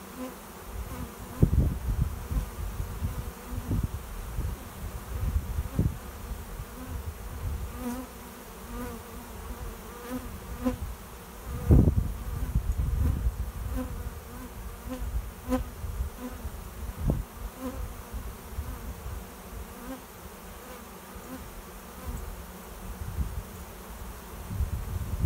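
A swarm of honey bees buzzing: a dense, steady hum with single bees' buzzes swelling and fading as they fly close past, while the swarm moves into a swarm box. A few louder low rumbles come and go, the biggest about halfway through.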